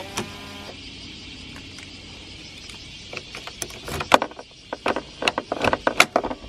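Irregular sharp clicks and knocks over a steady hiss, starting about three seconds in and growing busier toward the end. A short musical phrase fades out at the very start.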